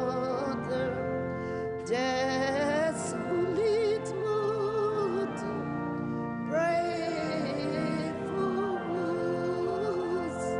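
Music: a sacred hymn sung slowly with strong vibrato over steady held accompaniment, with new phrases starting about two and six and a half seconds in.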